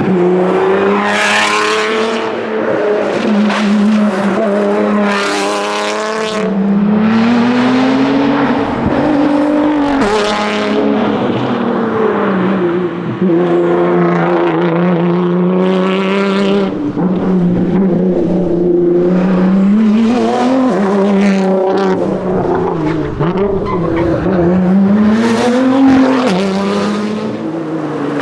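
Nissan R35 GT-R's twin-turbo 3.8-litre V6 at full race pace, revving up through the gears with repeated rising runs and drops at each shift, lifting and braking between bursts of acceleration.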